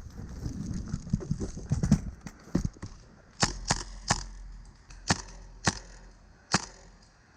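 Footfalls and gear rustle of a player on the move, then about six single airsoft gun shots, sharp cracks a half-second to a second apart.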